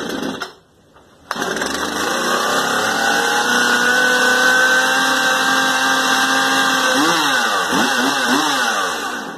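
Craftsman 42cc two-stroke chainsaw engine running steadily, now that its broken fuel line has been replaced. Near the end the revs rise and fall a few times before the sound cuts off.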